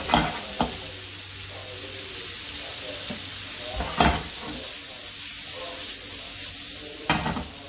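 Vegetables sizzling in a hot frying pan on a gas burner while being stir-fried and tossed, with a few loud clatters: near the start, about four seconds in, and near the end.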